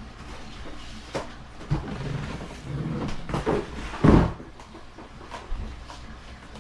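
Cardboard packaging box being handled and moved: rustling and scraping with a few knocks, and one heavy thump about four seconds in.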